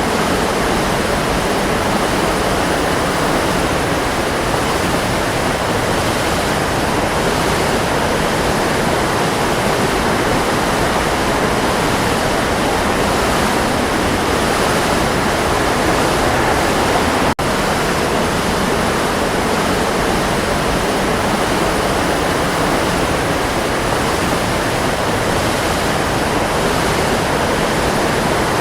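Waterfall roaring: a steady, dense rush of falling water with no let-up. It cuts out for an instant about two thirds of the way through.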